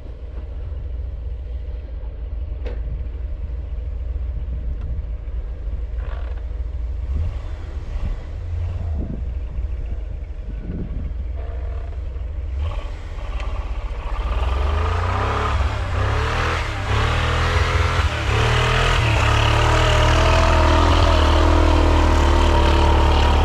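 Ford Bronco engine running at low revs, with a few sharp knocks and clatter. About halfway through the revs build, and the engine runs loud and steady under load.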